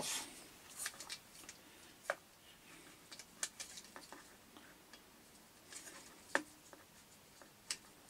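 Sporadic light clicks, taps and rustles of hard plastic parts and cardboard packaging being handled. The sharpest taps come about two seconds in and again past six seconds.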